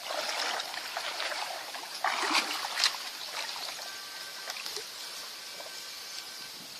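Water splashing and sloshing, louder in the first second and again around two seconds in, then settling to a quieter steady trickle.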